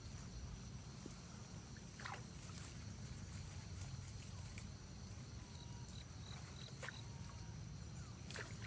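Faint outdoor ambience: a steady low rumble with scattered light clicks and a few short, high chirps in the middle.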